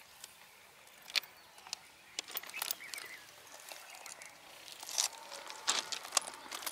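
Scattered small clicks and crunches of crushed-stone railway ballast being shifted as a hand digs among the stones beside the rail. The sounds are irregular and come in loose clusters, a little busier about five to six seconds in.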